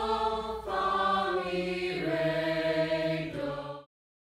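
High school choir singing held chords, moving to a new chord twice, then cut off abruptly near the end.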